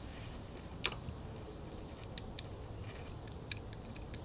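Faint small metallic clicks and ticks as a hand wrench is brought to and fitted on the square nut of a lathe change-gear stud, with one sharper click about a second in.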